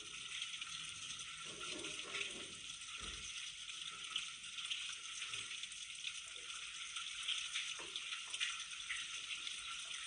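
Running water of a stream: a steady, even rushing flow.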